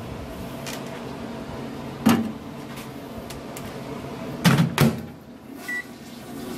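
Microwave oven being loaded and shut: a knock about two seconds in, then the door swung shut with two sharp latch clicks, followed by a short high keypad beep.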